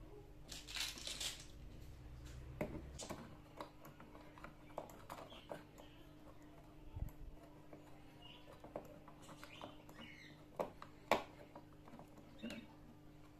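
Small clicks, taps and knocks of a screwdriver and a 3D-printed plastic bracket being screwed down onto a board, with a short scraping rustle about a second in and the sharpest knock a couple of seconds before the end. A faint steady hum runs underneath.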